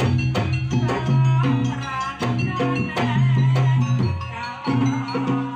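Javanese jaranan music: fast, busy drumming with sharp wooden strikes over held low gong-like tones.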